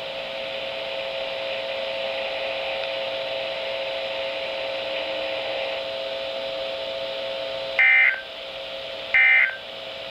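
NOAA Weather Radio broadcast on a Midland WR-300 receiver: steady static hiss with a faint hum for several seconds of dead air. About eight seconds in come two short, loud data bursts a little over a second apart, the EAS/SAME end-of-message tones that close the required weekly test.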